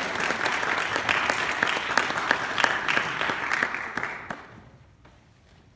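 Audience applauding after a piece of cello and tuba music ends; the clapping dies away about four seconds in.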